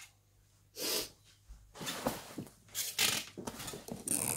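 Handling noises on a workbench: a short rustle about a second in, then a run of irregular rustles, scrapes and light knocks.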